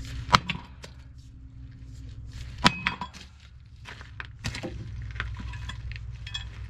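Sharp metal-on-metal strikes and clinks on the loader's steel sheet metal, three main blows with a brief ring, the second, about two and a half seconds in, the loudest, over a steady low hum.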